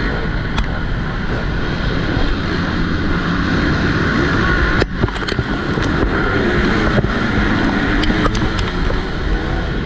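Motocross bike engine running hard, with heavy wind noise on the microphone. A few sharp clicks, and a brief drop in level about five seconds in.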